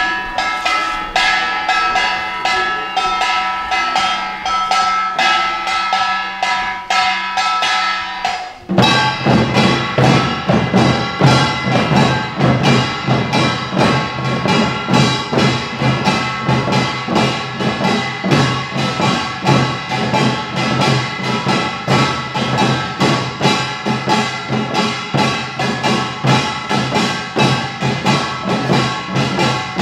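Utdari samul nori percussion ensemble playing: kkwaenggwari small gongs clattering in quick strokes over ringing gong tones, then about nine seconds in the janggu hourglass drums and buk barrel drums come in, louder, with a fast even driving beat.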